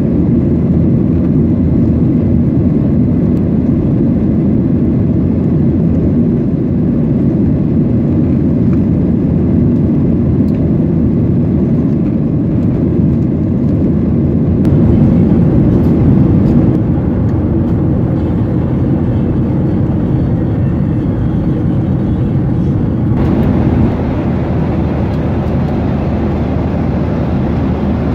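Cabin noise of a Boeing 737-800 in flight: a steady low rumble and roar of its CFM56-7B turbofans and the airflow over the fuselage, heard from a seat by the window. It turns a little hissier in the last few seconds.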